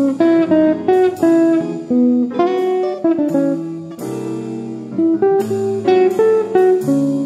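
Background music: a melody of sharply struck notes, each ringing and fading, several a second.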